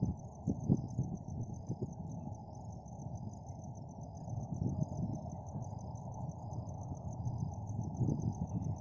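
Crickets chirping in a steady, evenly pulsing high-pitched trill over a louder low rumble, with a couple of brief knocks near the start.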